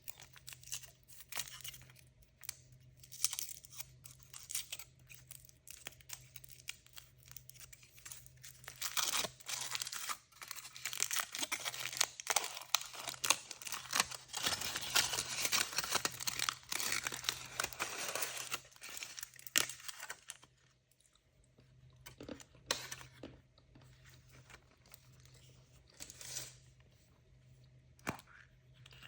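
Surprise-toy packaging being torn open and crinkled by hand: scattered crackles at first, a dense stretch of tearing and crinkling from about nine to twenty seconds in, then a few sparse crinkles.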